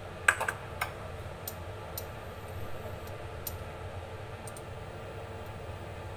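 A few sharp clicks of ceramic bowls being set down on the kitchen counter, the loudest about a third of a second in, then scattered faint ticks of dishes and a glass oil jar being handled, over a steady low hum.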